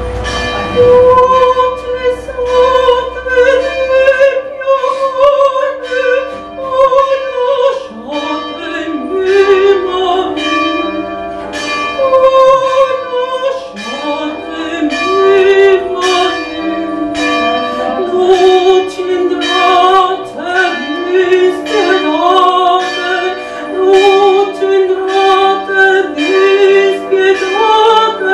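Countertenor singing a slow, sustained lyrical line in the alto range over an instrumental accompaniment that strikes a chord about twice a second.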